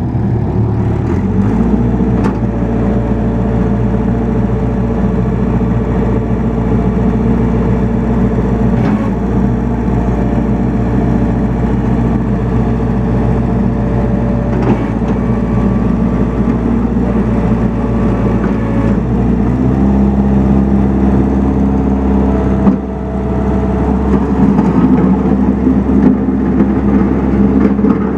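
Case 1845B skid steer loader's diesel engine running steadily, its engine speed changing about a second and a half in and again about 19 seconds in.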